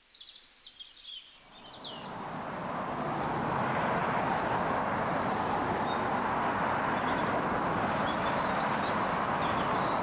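A few bird chirps, then steady road-traffic noise that fades in over the first few seconds and holds, with faint chirps on top.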